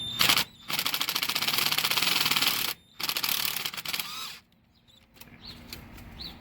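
Power wrench rattling in three bursts, a short one and then two long ones, as it runs bolts off.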